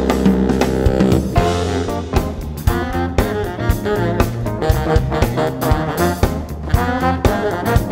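Live jazz band playing: saxophone and trombone over drum kit, electric bass and Fender Rhodes electric piano. A held chord rings for the first second and a half, then busy horn phrases run over steady drum hits.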